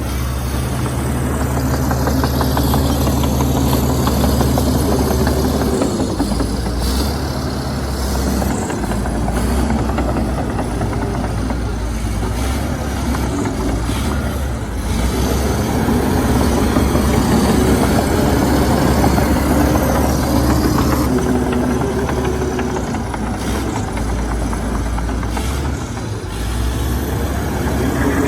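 Heavy diesel earthmoving machinery, the Komatsu D61EX bulldozer at work, running continuously. The engine note rises and falls with the load, dipping briefly about halfway through and again near the end.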